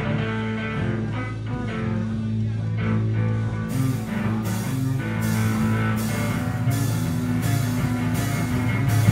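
Rock band (electric bass, electric guitar and drum kit) playing a riff together at a soundcheck. From about four seconds in, cymbal strikes land on a steady beat, with heavier hits at the very end.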